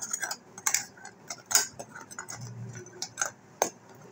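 A metal spoon clicking and tapping irregularly against a steel pot while fried milk buns are turned in sugar syrup.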